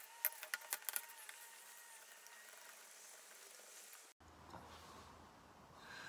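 Cloth polishing a brass lever door handle: a quick run of short rubbing scrapes and clicks in the first second or so, then only faint hiss.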